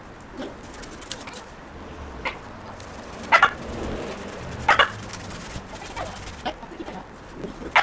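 Domestic chickens clucking: about half a dozen short, sharp clucks spread over several seconds, the loudest a few seconds in and again near the end.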